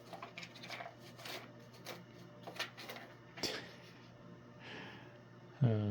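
Scattered light scratches and taps of a cat's paw working at a cardboard Cat Amazing Classic treat puzzle box, trying to fish a treat out.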